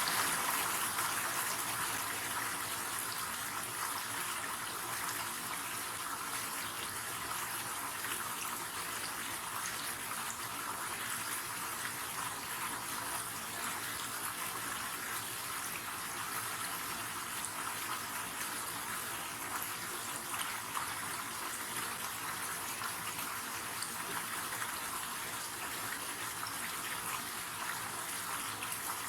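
River water rushing and flowing steadily, a continuous even wash of sound.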